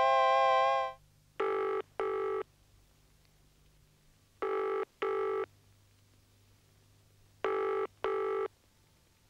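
A telephone ringing three times in the British double-ring pattern, two short rings then a pause. A held musical chord fades out just before the first ring.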